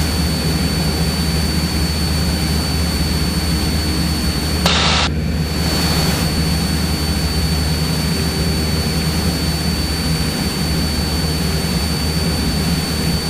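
Cessna 172's piston engine and propeller running steadily in flight, a constant low drone mixed with rushing air noise in the cabin, with a thin steady high whine over it.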